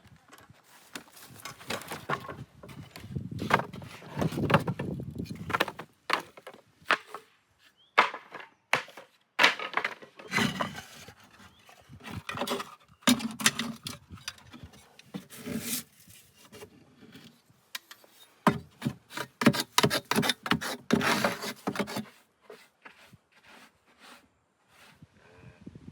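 Hand work on an old wooden beehive: irregular knocks, taps and scraping of wood, coming in busy spells with short pauses between.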